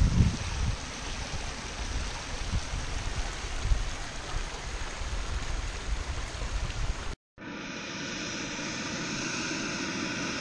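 A small rocky creek rushes and splashes over a riffle, with irregular low rumbling. About seven seconds in, the sound cuts to a steady hiss: a backpacking stove burning under a pot, heating water.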